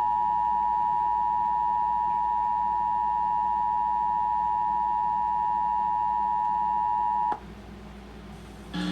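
Emergency Alert System attention signal: two steady tones sounded together as one loud dual tone, marking the start of an alert message, here the national EAS test. It holds for about seven seconds, then cuts off abruptly, leaving only a faint low background.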